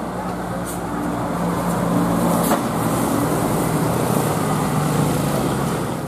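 Diesel coach bus engine running as the bus drives past up close, getting a little louder as it nears and passes; no horn is sounded.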